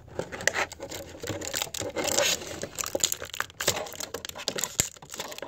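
Toy packaging crinkling and rustling as it is handled by hand: a dense, uneven run of crackles.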